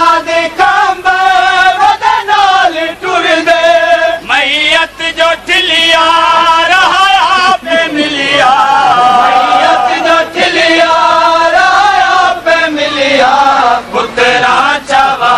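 A noha, a Punjabi mourning elegy, chanted by a male voice in long, drawn-out lines that bend up and down in pitch, with short breaks between phrases.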